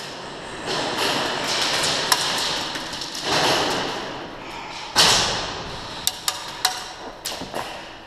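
Airsoft gunfight: scattered sharp cracks and taps of shots and BBs striking hard surfaces, over a noisy rustle of movement, with the loudest crack about five seconds in.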